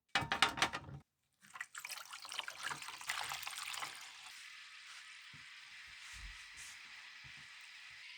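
A short clatter, then liquid being poured and a crackling fizz that builds and settles into a steady sizzling hiss.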